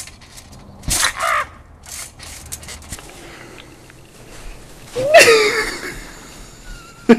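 A thud as someone lands from a flip off a trampoline, with a short cry right after. A few seconds later comes a loud yell that rises and then falls in pitch.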